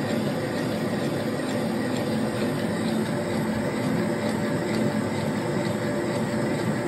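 Metal lathe running steadily, spinning a cast trunk guide on a ring mandrel during a facing cut, with an even mechanical hum and a few faint light ticks.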